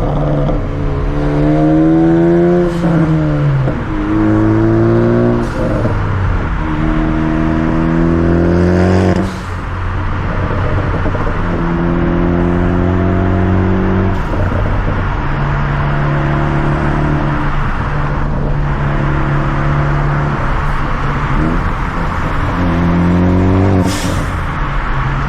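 Ford Focus ST's turbocharged four-cylinder with a Borla cat-back exhaust accelerating hard through the gears: the revs climb and drop at each upshift, five or six times. A few sharp exhaust pops from its pops-and-crackles tune, the loudest near the end, over steady road noise.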